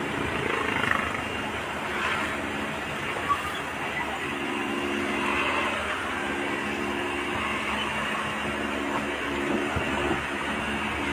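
Dump truck driving on a paved road, heard from inside the cab: a steady engine drone mixed with road and wind noise.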